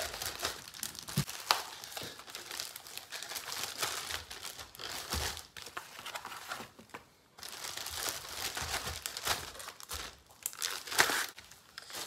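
Plastic freezer bags and packaging crinkling and rustling as ears of corn on the cob are packed into them, with a brief pause about seven seconds in.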